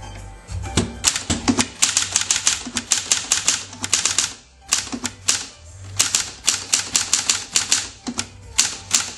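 Hermes Ambassador manual typewriter being typed on: quick runs of sharp key and typebar strikes, with a short pause about four and a half seconds in.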